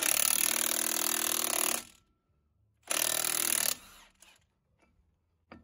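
Milwaukee M18 Fuel 3/4-inch cordless impact wrench hammering in two bursts, about two seconds and then about one second, driving the forcing screw of a u-joint puller to push the yoke apart and press out a u-joint cap.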